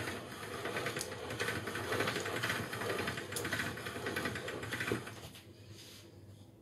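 Hand-cranked pasta machine turning as a sheet of semolina dough is fed through its rollers, a steady fast mechanical rattle of the crank gears. It stops about five seconds in.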